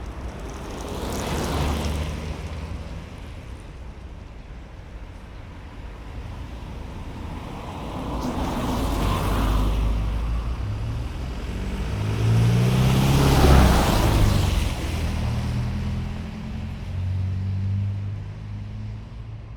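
City street traffic: vehicles passing by one after another, swelling and fading three times. The loudest pass comes in the middle, followed by a low engine note from a heavier vehicle that lingers through the rest.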